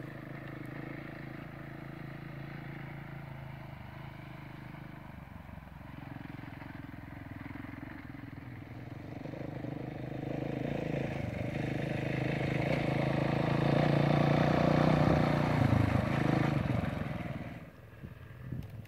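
Dual-sport motorcycle engine pulling up a steep gravel pass, its note growing steadily louder as the bike climbs toward the listener. It is loudest about three-quarters of the way through, then drops away suddenly near the end.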